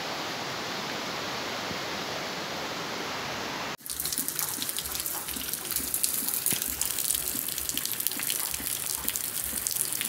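A steady rush of water, cutting off suddenly about four seconds in. It gives way to heavy rain falling on a wet street: a dense crackling patter of drops.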